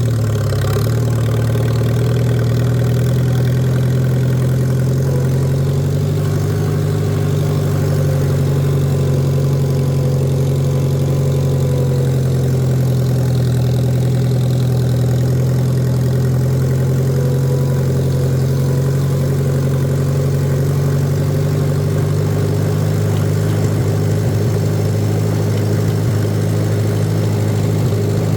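Old farm tractor engine running steadily at an even speed while mowing.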